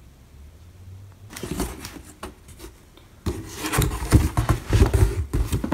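Packaging being handled: plastic food pouches and a cardboard box rubbing, scraping and knocking in irregular rustles, loudest over the last two and a half seconds.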